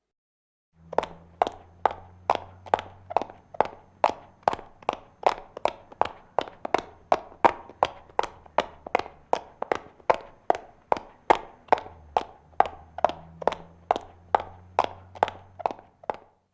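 High-heeled shoes walking hurriedly: sharp, evenly spaced heel clicks, a little more than two a second, starting about a second in, over a faint steady low hum.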